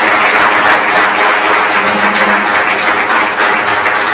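Audience applauding, a loud, dense, steady clapping that began just as the talk ended.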